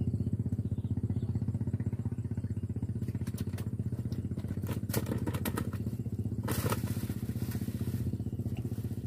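A small engine running steadily with a low, rapid pulsing beat. A few brief clicks and a short rustle sit over it around the middle.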